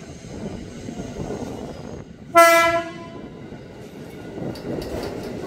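KRL Commuter Line electric train running into the station, with one short horn blast a little over two seconds in, a single steady tone lasting under a second. The train's running noise grows toward the end as it draws alongside the platform.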